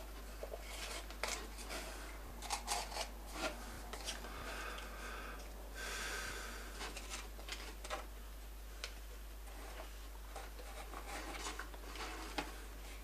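Light rustling, rubbing and small knocks of fireworks packaging being handled: cardboard and plastic items picked up, turned over and set down, with a longer stretch of rubbing about four to six seconds in.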